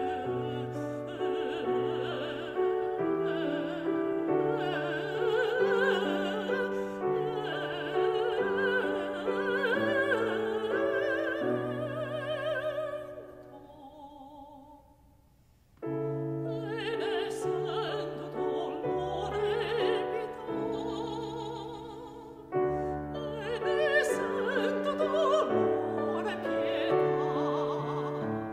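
A woman singing a classical art song or aria in operatic style, with a wide vibrato, over piano accompaniment. About halfway through the music dies away to a near-silent pause of a couple of seconds, then piano and voice come back in together.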